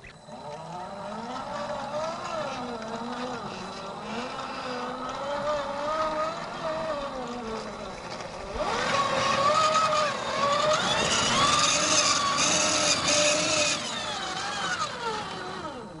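RC4WD Trail Finder 2 scale crawler's electric drivetrain whining as it claws up steep wet rock, the pitch wavering up and down with the throttle. From about eight and a half seconds in it gets louder and harsher for about five seconds as the truck scrabbles and struggles for grip, then eases.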